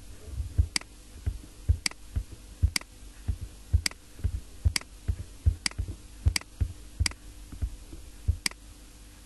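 Computer mouse clicking, short sharp clicks coming unevenly about twice a second, over a faint steady hum.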